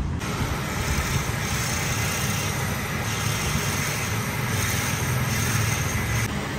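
Steady road traffic noise: a broad rumble and hiss of passing vehicles, with no single engine standing out.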